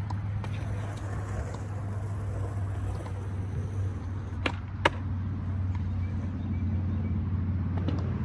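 A steady low rumble with two sharp skateboard clacks about half a second apart midway through.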